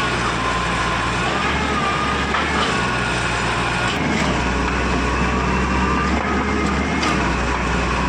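Heavy diesel construction machinery running steadily, a low engine drone under a wavering high-pitched whine, with a couple of sharp clicks or knocks.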